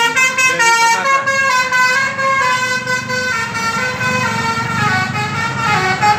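A tour bus's Basuri telolet horn playing a tune, a quick run of horn notes stepping up and down in pitch, over the bus engine and street traffic.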